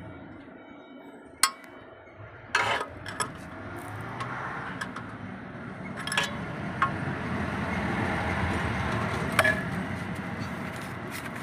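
A handful of sharp metal clinks and taps as a steel rod in the splined hub of a clutch disc is worked around to center the disc in the pressure plate, over a low rumble that swells through the middle and eases off near the end.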